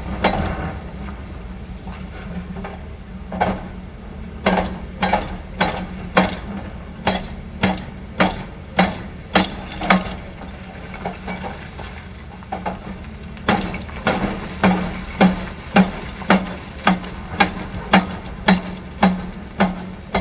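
Heavy construction machine hammering: sharp repeated blows about one and a half to two a second, over a steady engine drone. The blows thin out for a few seconds in the middle, then resume.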